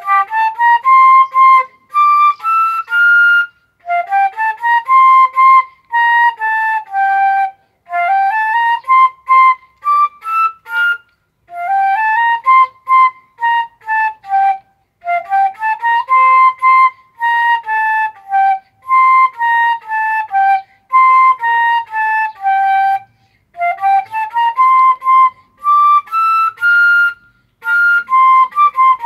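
Solo concert flute playing a slow melody in short phrases, each climbing and then falling back, with brief breaths between them. No accompaniment.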